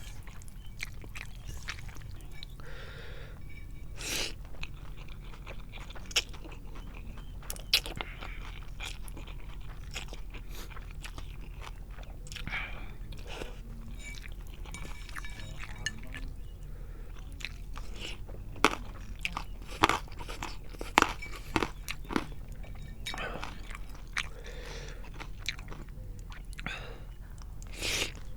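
Close-miked chewing and wet mouth sounds of someone eating spicy instant noodles in soup, with irregular sharp clicks and smacks.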